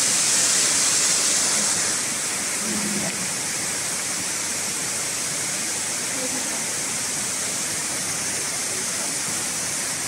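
Steady rushing hiss of a high waterfall cascading over rock, dropping a little in level about two seconds in.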